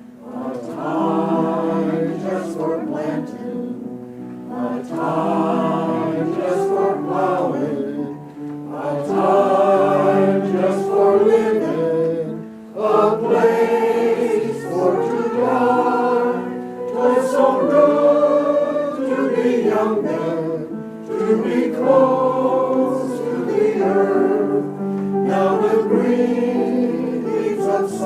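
A choir singing a song together, in phrases with brief breaths between them.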